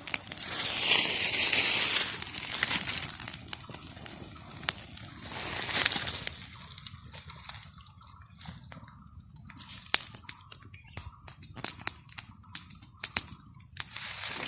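Steady high-pitched insect drone in forest. A loud rustle of leaves and branches comes about a second in and a smaller one near six seconds, with scattered sharp snaps like twigs breaking.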